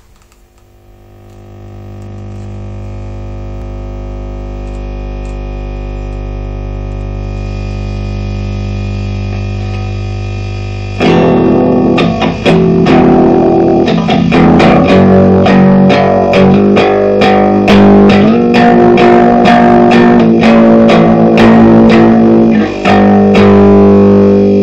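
Distorted electric guitar. A held chord swells in slowly, then about eleven seconds in loud picked notes and chords start up in a riff.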